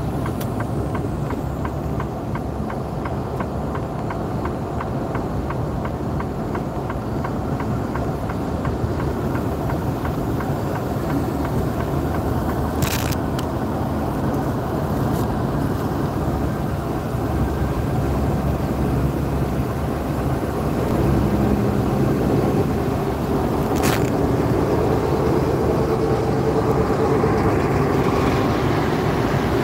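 Big rig's diesel engine and road noise heard from inside the cab while cruising at highway speed. The drone is steady and grows a little louder in the last third. Two sharp clicks come about eleven seconds apart.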